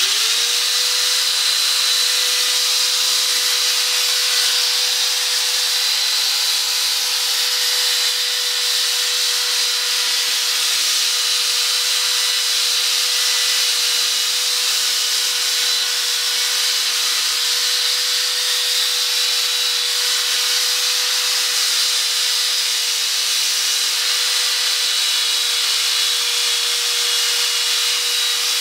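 Black & Decker corded drill spinning a Trizact gray sanding pad against a wet plastic headlight lens, starting up at once and then running at a steady speed with an even whine over the rasp of the pad. This is the wet-sanding stage that refines the scratches and brings back the lens's clarity before rubbing compound.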